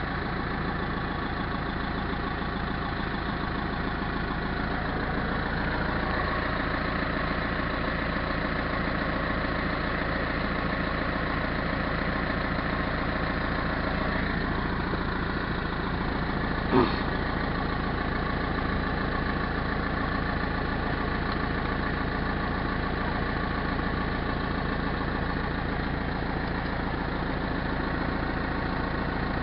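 Caterpillar backhoe's diesel engine running steadily and quietly at an even speed, with a single sharp knock a little past halfway.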